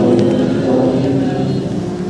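A man's voice chanting Quranic recitation in Arabic, with long held melodic notes.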